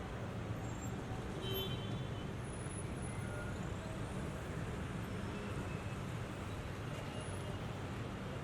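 Steady road traffic noise: a constant low rumble of passing vehicles.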